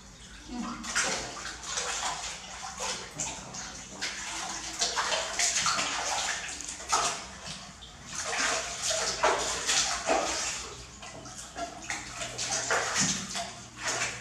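Water splashing and sloshing in a plastic bucket as a baby monkey is washed by hand, in irregular surges.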